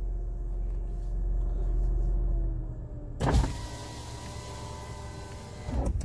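Renault Triber electric window motors whining as the glass lowers over the engine idling. The first whine sags slightly in pitch and stops with a knock about three seconds in. A second, higher whine runs on after it, with more outside air noise coming in through the open window.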